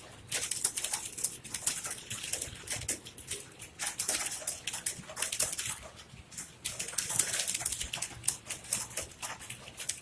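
Fast typing on a computer keyboard: a dense, uneven patter of key clicks, with a couple of brief pauses.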